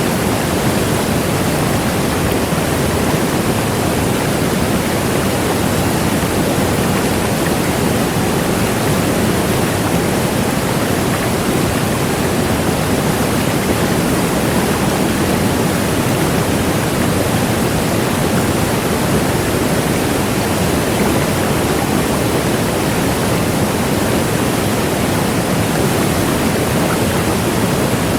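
Large waterfall: a loud, steady rush of falling water without a break.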